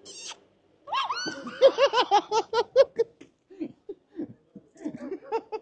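A person laughing hard in rapid rhythmic bursts, a startled reaction to a fright. It begins about a second in with a high, rising and falling cry that breaks into a quick run of laughs, loudest early on, then goes on in shorter, softer bursts.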